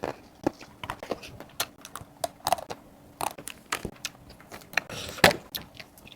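Close-miked eating of a Magnum mini chocolate-coated ice cream bar: a run of short, crisp crackles and clicks as the chocolate shell is bitten and chewed, with one louder crunch about five seconds in.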